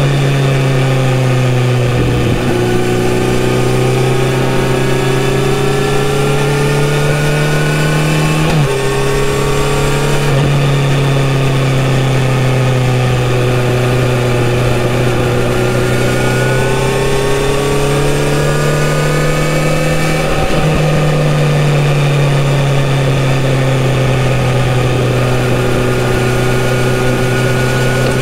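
Kawasaki Z900RS inline-four engine with a full-system exhaust, running under load while riding: the engine note climbs slowly and drops abruptly about three times as gears change, over a steady rush of wind and road noise.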